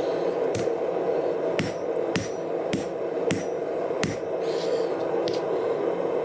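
Hammer blows on a piece of 5160 leaf spring steel being forged into a knife: about seven sharp strikes at an uneven pace, roughly every half second to a second, over a steady hum.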